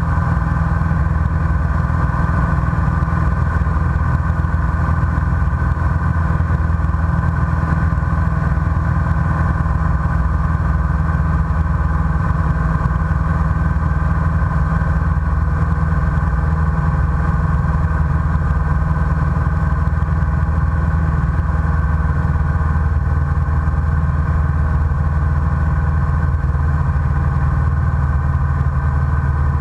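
Light single-engine propeller airplane in cruise flight, its engine and propeller droning steadily and evenly, heard from inside the cockpit.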